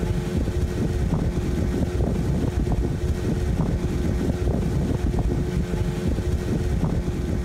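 The engine of a motorised dugout canoe running steadily at speed, with a constant hum and water rushing along the hull.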